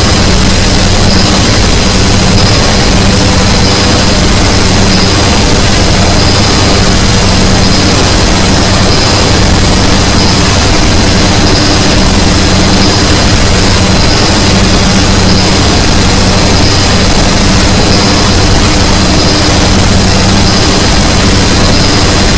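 Experimental drone-noise music: a loud, unbroken wall of harsh noise with a sustained low hum underneath and thin, steady high whistling tones on top.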